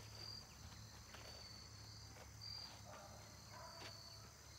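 Faint insect trills: short, thin high notes that come and go every second or so over a steady low hum.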